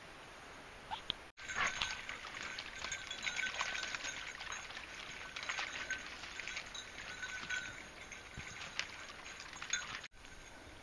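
Crackling and rustling of footsteps and dogs' paws on a leaf-covered forest trail. It starts abruptly about a second in and cuts off just before the end.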